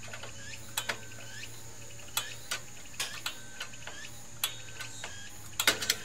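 Rear drum-brake shoe adjuster being turned with a flat-blade screwdriver, clicking one notch at a time as the shoes are set out toward the drum. Single clicks come at uneven intervals, with a quick run of several near the end.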